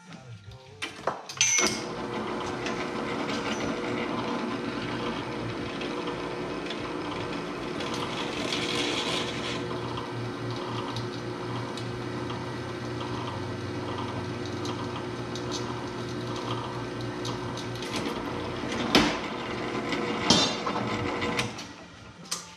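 Floor-standing drill press motor switched on and running steadily while drilling a flat steel bar, with a brief higher hiss of cutting partway through. Near the end come two sharp knocks, then the motor stops.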